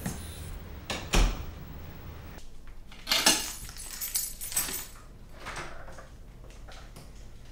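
A heavy thud about a second in, then a bunch of keys jangling about three seconds in, followed by a few smaller clicks and knocks.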